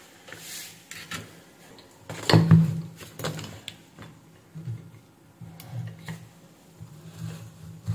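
Hands handling test leads and small tools on a workbench: scattered clicks and knocks, the loudest cluster about two and a half seconds in. A low buzzing hum comes and goes after that.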